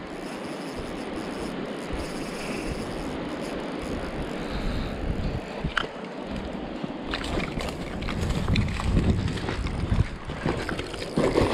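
Steady rushing of river water mixed with wind buffeting the microphone. From about seven seconds in, a run of knocks and scuffs and a louder low rumble join it, as someone moves along the riverbank to land the fish.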